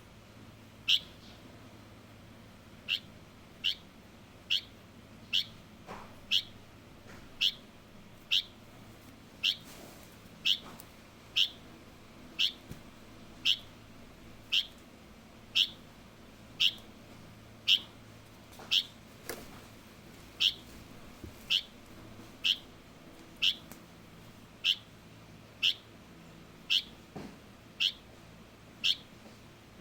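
Young light-vented bulbul (Chinese bulbul) calling over and over, a single short chirp about once a second, each one falling quickly in pitch.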